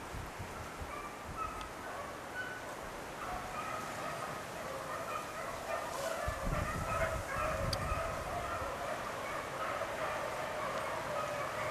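A pack of beagles baying in the distance, many short overlapping calls, while they run a rabbit's track; the cry swells about halfway through. A low rumble on the microphone comes in about six seconds in.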